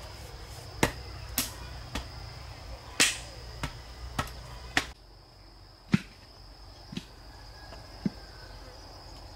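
Irregular sharp knocks and chops of hand-tool work, about ten in all, over a steady high-pitched chirring of insects. The low background rumble drops away about five seconds in.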